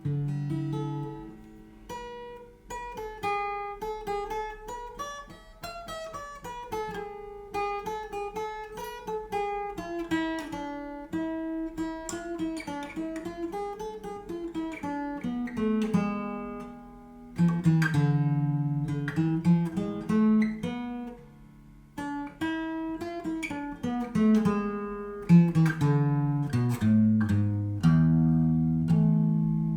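Yamaha FG850 solid-mahogany dreadnought acoustic guitar played fingerstyle: a melody of single plucked notes over bass notes, with busier, chord-like passages near the end.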